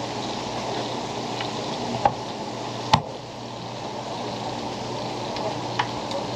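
Steady hiss of hot deep-frying oil, with a few sharp clicks of a steel ruler and knife set down on a plastic cutting board. The loudest click comes about three seconds in.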